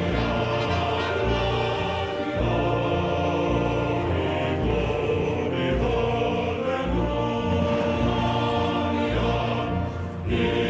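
Orchestral music with a choir singing long, held chords that change every second or two.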